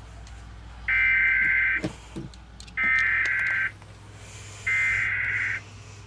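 Emergency Alert System SAME header tones played through a TV speaker: three digital data bursts, each just under a second long and about a second apart. They encode the alert header that opens an EAS Required Monthly Test.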